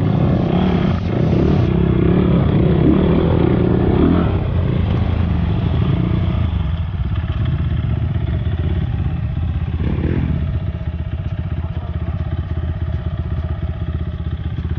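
Off-road motorcycle engine running steadily while being ridden.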